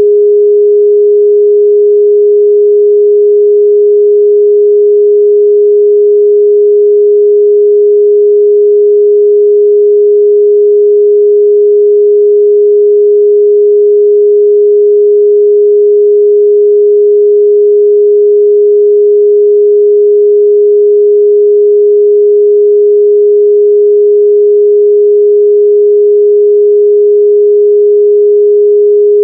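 A pure 414 Hz sine-wave test tone, held steady and loud with no change in pitch or level.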